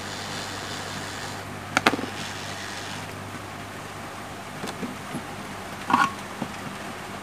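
Steady blowing hiss and hum of a hot air rework station, with two sharp clicks of tools being handled, about two seconds in and again about six seconds in.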